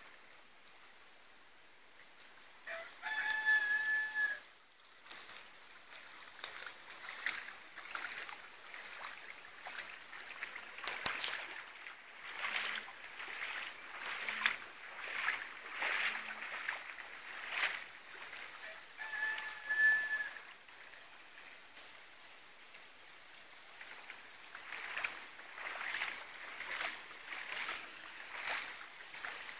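A peacock calls twice: a loud, held, level note about three seconds in and a shorter one about two-thirds of the way through. Between and after the calls come repeated splashes at roughly one a second from feet wading through shallow floodwater.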